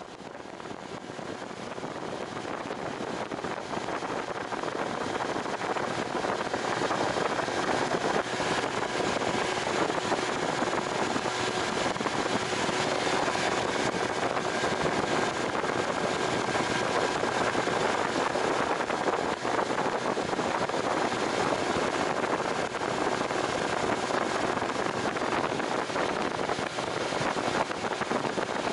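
Strong wind buffeting the microphone over the steady running of a jon boat's motor, rising over the first few seconds and then holding steady.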